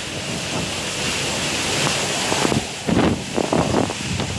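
Cyclone wind and heavy rain: a steady loud hiss, with gusts buffeting the microphone from about halfway through.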